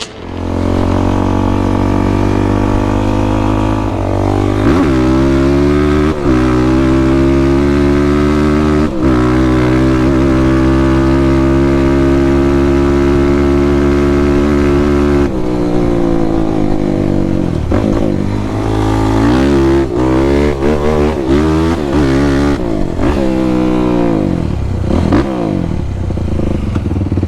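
Sport quad (ATV) engine running hard at steady revs, with a few brief dips in the first half, then revving up and down over and over in the second half.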